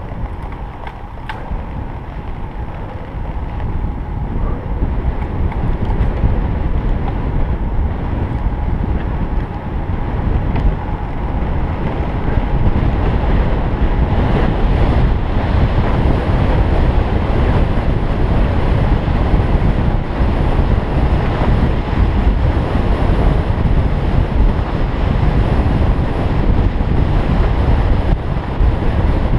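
Wind rushing over the microphone of a camera on a moving road bike: a steady, loud rumble heaviest in the low end, growing louder over the first dozen seconds as speed picks up, then holding steady.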